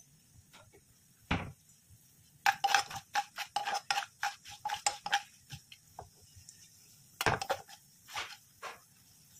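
Metal spoon stirring and scraping in a non-stick kadai through a tempering of lentils and spices in oil: a single knock about a second in, then a quick run of scrapes and taps with a ringing tone for about three seconds, and a few more strokes near the end.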